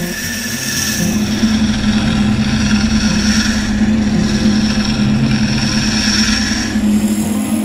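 Wood lathe running with a steady hum while a hooked hollowing tool cuts the inside of a spinning wooden pot, a continuous scraping of the cut that eases off near the end.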